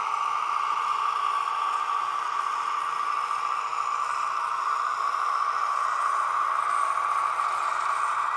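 H0-scale Ferivan model of an SNCV ART300 tram running along its layout track with its Benedini sound module on: a steady hissing running noise with a light rattle.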